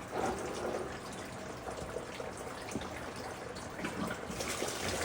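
Engine coolant pouring and trickling out of a car's opened cooling system into a catch bin below. The flow is steady, then grows louder and more splashy about four seconds in.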